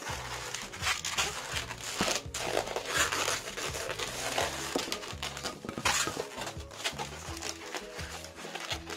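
Long latex modelling balloons being twisted and rubbed against each other by hand, giving a dense, irregular run of squeaks and crinkling. Faint background music plays underneath.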